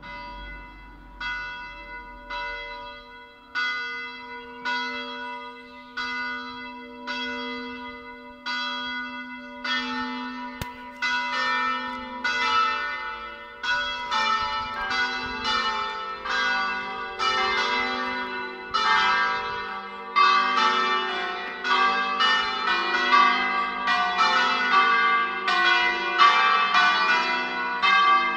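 Church bells ringing in a belfry. One bell strikes at an even pace, a little over once a second, then about ten seconds in more bells join in a denser, louder peal of overlapping strokes.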